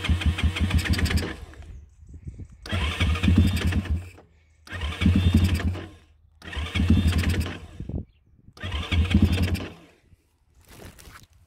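An electric starter cranks the WPB Beast 190 pit bike's 190cc four-stroke single-cylinder engine in five short bursts of about one and a half seconds each. Each burst cuts off without the engine catching.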